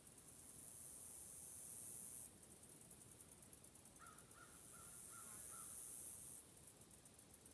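Distant crow cawing, a quick run of about six short harsh caws about four seconds in. Under it a faint, high hiss stops and starts every couple of seconds.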